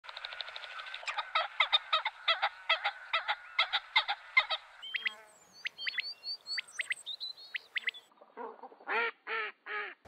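Geese honking in a quick series of calls, about three a second. They are followed by thin, sliding whistled bird calls, and then by four louder, lower honks near the end.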